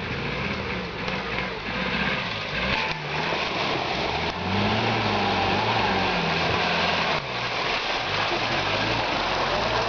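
Suzuki Samurai's engine revving up and down under load off-road, its pitch rising and falling several times over a constant rushing noise.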